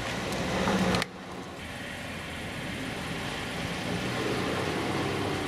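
Mazda car engine idling steadily, the idle that makes the driver's seat shake. About a second in the sound drops suddenly to a quieter, even hum.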